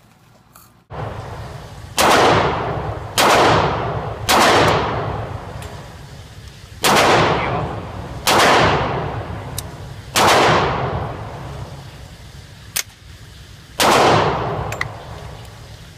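Seven single shots from an AR-style rifle at an indoor range, irregularly spaced over about twelve seconds, each followed by a long echoing decay. A shorter, sharper crack sounds between the last two shots, over a steady low background rumble.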